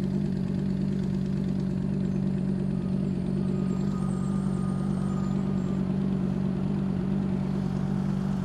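A vehicle's engine running at a steady speed: a constant low drone that holds one pitch throughout.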